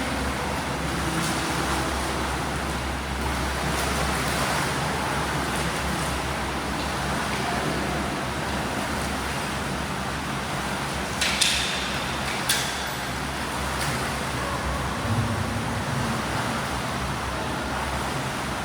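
Steady wash of swimming-pool noise from water and swimmers during a training drill, with two sharp clicks a little past the middle.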